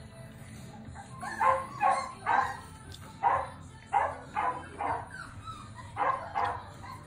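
Aussalier puppies (Australian Shepherd and Cavalier King Charles Spaniel cross) barking: about ten short yaps, coming in quick clusters of two or three with pauses between.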